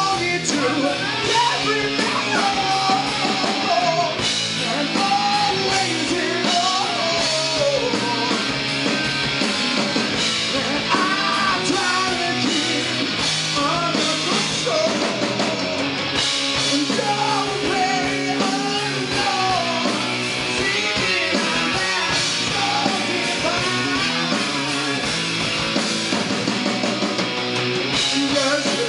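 Live rock band playing: electric guitar, bass guitar and drums, with a man singing lead over them.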